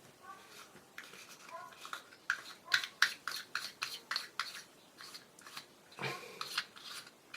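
Rubber friction lens-opener gripping and twisting the front cover ring of a Pentax-M 28mm f/2.8 lens: a run of short irregular squeaks and clicks of rubber on the lens as it is pressed and turned anti-clockwise to unscrew the ring.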